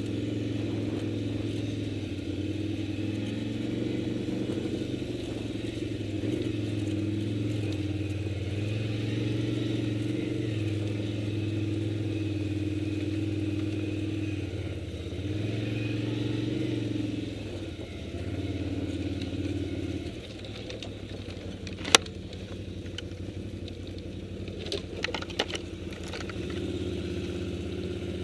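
Large touring motorcycle's engine running at low speed as it is ridden along a rough grass track, its note rising and falling with the throttle, then settling to a lower, steadier note about two-thirds of the way through. A sharp knock comes shortly after, followed by a few smaller clattering knocks.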